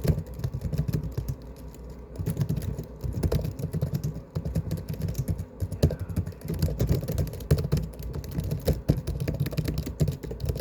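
Typing on a laptop keyboard: a dense, irregular run of key clicks on the main keys, with brief pauses about two and four seconds in.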